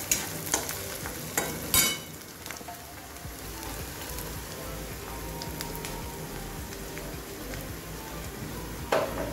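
Sliced onions sizzling in hot oil in a kadai, with a steady hiss throughout. A metal spatula scrapes and knocks against the pan three times in the first two seconds and once more near the end.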